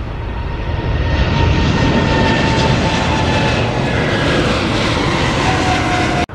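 Boeing 777's twin jet engines at takeoff power as the airliner climbs out: a loud, steady rush with a high whine that falls slightly in pitch as it passes. The sound cuts off suddenly near the end.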